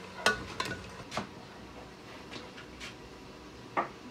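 A steel ladle clinking against an aluminium cooking pot several times during stirring, in short sharp knocks a second or so apart.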